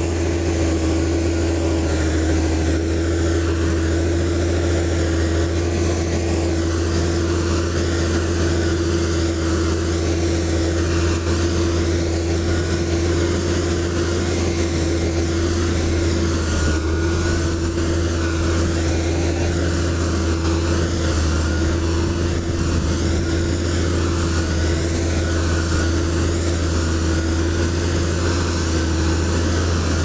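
Heavy construction machine's diesel engine running at a steady speed: a constant low hum with an even tone above it.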